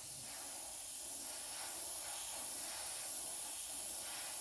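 Gravity-feed airbrush spraying paint onto a crankbait in a steady hiss of air.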